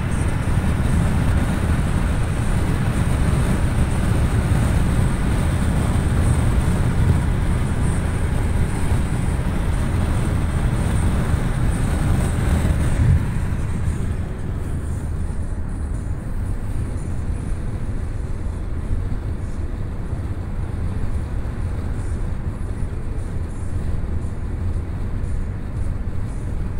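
Steady road and wind noise of a car driving at highway speed, heard inside the car. About halfway through it turns suddenly quieter and duller, keeping a low rumble.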